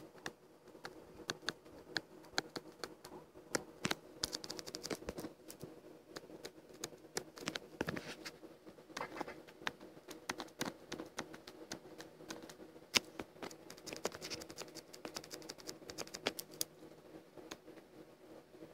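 Irregular light clicks and taps, like keys or a stylus being worked while drawing, over a steady low hum.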